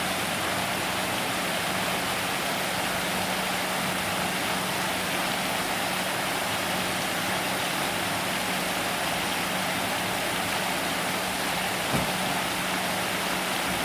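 Water running steadily over an artificial rock waterfall, an even rushing noise with a faint steady low hum under it. There is one light knock about twelve seconds in.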